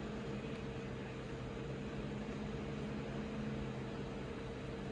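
Steady low hum with an even hiss underneath. It does not change, with no clicks or other events.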